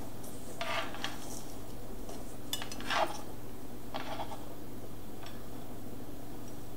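Several short clinks and taps as sliced green onion is gathered off a wooden cutting board into a small glass bowl and the bowl is handled, spaced a second or so apart, over a low steady hum.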